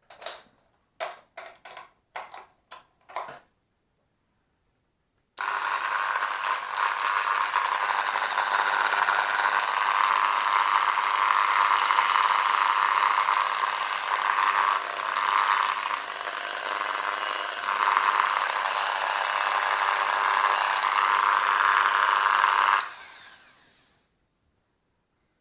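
Parkside PFBS 160 B2 rotary tool (a small precision drill/grinder) switched on, running steadily at speed with a high whine for about seventeen seconds, then switched off and spinning down; a few short clicks of handling come before it starts. Its running noise is the noise the tool is to be fixed for.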